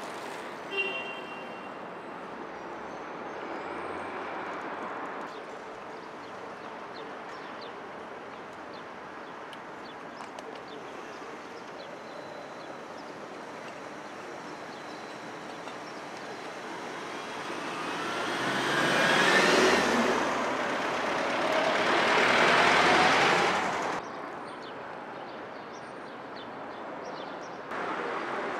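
Street ambience of light city traffic. Passing traffic swells for several seconds about two-thirds of the way in, with the rising and falling pitch of a vehicle going by, then cuts off suddenly.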